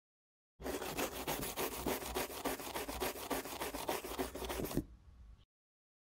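Scribbling sound effect: rapid back-and-forth rubbing strokes, about five a second, starting about half a second in and stopping abruptly near the end.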